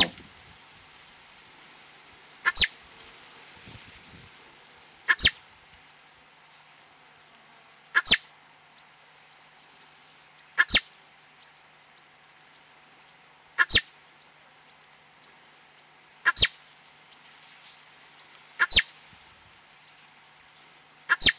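Young marmot calling: a single short, sharp, high-pitched call repeated at an even pace, about every two and a half seconds, eight or nine times.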